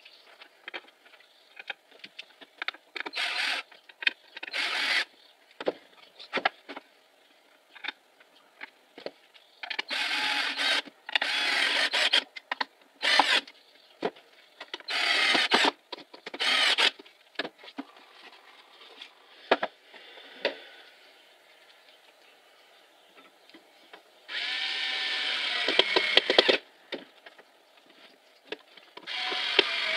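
Cordless drill-driver driving screws into a pine drawer frame to fix metal drawer slides. It runs in about eight short bursts of a second or two, the longest near the end, with the motor's pitch bending. Small clicks and knocks of handling come between the bursts.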